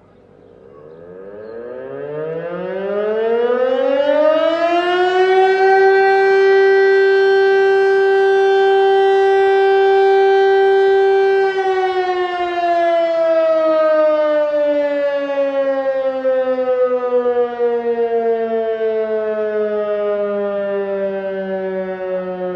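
Fire-brigade alarm siren sounding: its pitch rises over about five seconds to a loud, steady wail, holds for several seconds, then falls slowly, and starts rising again near the end.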